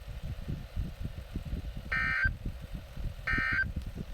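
Emergency Alert System end-of-message code from NOAA Weather Radio, coming through a WR300 weather radio's speaker: two short, harsh digital data bursts about 1.3 s apart, the 'NNNN' bursts that close the Required Weekly Test. A low rumble from the radio reception runs underneath.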